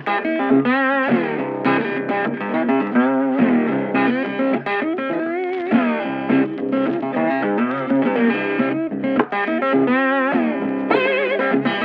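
Background music led by electric guitar, its notes bent and wavering over a steady accompaniment.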